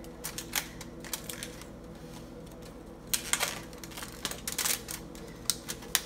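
Aluminium foil crinkling and crackling in short, irregular bursts as it is unfolded and peeled back from the rim of a pot sealed for dum cooking. The loudest crackles come about three seconds in and again near the end.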